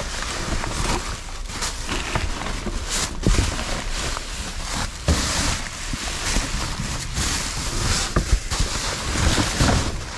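Rummaging through trash in a dumpster: steady rustling and crinkling of bags and cardboard, broken by irregular knocks and clatters as items are moved.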